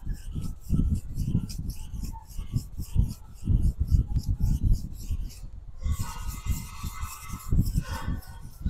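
Nakiri knife blade ground on a whetstone, steel scraping on stone in regular strokes about two a second, with one short pause a little past the middle. The stone is biting the steel well, grinding away the scratches from the rough grind.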